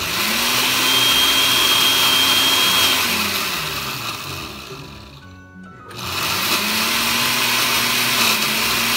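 Countertop blender grinding blue crab bodies into a paste, run in two bursts. The motor spins up at once, runs about three seconds, winds down to a stop, then starts again about six seconds in and runs until it begins to slow near the end.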